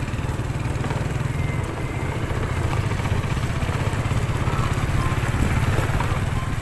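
A small motorcycle engine running steadily.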